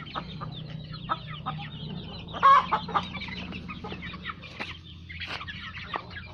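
A flock of chickens clucking in short calls as they feed, with one louder call about two and a half seconds in.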